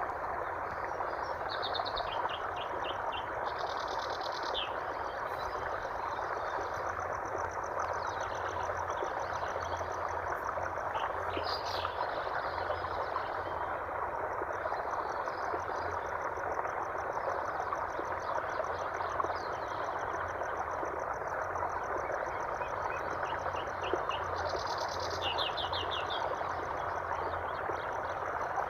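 A steady rush of running water, with birds chirping and trilling over it in short bursts, including quick rattling trills near the start and again near the end.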